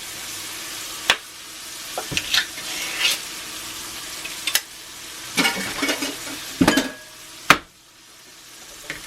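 Mushrooms, butter and garlic sizzling in a cast iron pan while being stirred, with a utensil clanking and scraping against the pan several times. After a sharp clank near the end the sizzle drops away for a moment, then builds back.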